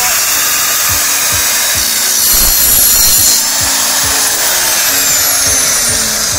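Evolution sliding compound miter saw with a multi-material blade, running and cutting through an aluminium tube. The cut is loudest about two to three seconds in, after which the motor's whine slowly falls as the blade spins down.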